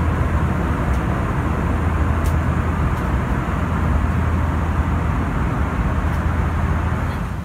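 Steady aircraft cabin ambience inside an Airbus A320: a low hum under an even rush of air from the cabin ventilation.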